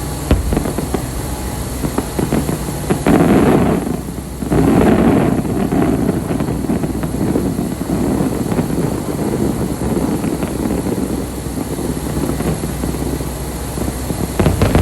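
Fireworks display: a continuous barrage of bangs and crackles over a low rumble, loudest about three to six seconds in.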